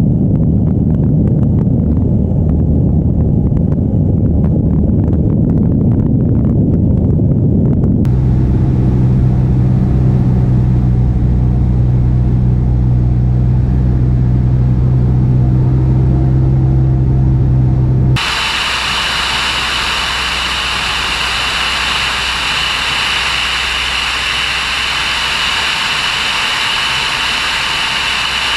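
Light aircraft in flight: engine and propeller drone mixed with wind rush. It changes abruptly twice as the view cuts between cameras: a rumbling, wind-buffeted sound at first, a steady low engine hum from about eight seconds in, then a brighter hissing rush with a steady high whine from about eighteen seconds in.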